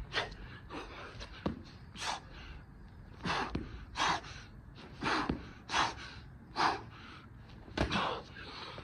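A man breathing hard and gasping, one heavy breath about every second, out of breath from doing burpees. A few soft thumps of hands and feet landing on a wooden deck.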